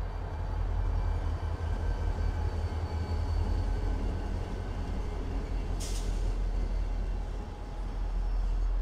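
Several BNSF diesel-electric locomotives rolling past close by with a steady, heavy low engine rumble. A short hiss of air comes about six seconds in.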